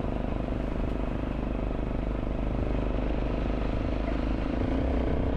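Dirt bike engine running steadily under way on a rough track, with no marked revving up or down.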